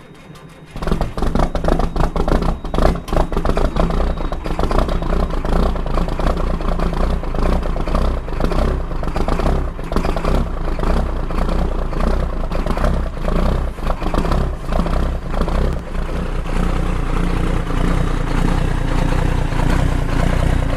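Cummins L10 inline-six diesel truck engine cold-starting without its block heater: it cranks briefly, catches about a second in, and runs rough and clattery at first, settling into a steadier idle after about sixteen seconds.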